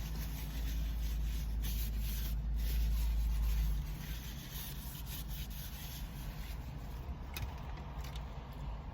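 Low rumble of a vehicle in the parking lot that drops away suddenly about four seconds in, with light rubbing and rustling close to the microphone and a few faint clicks.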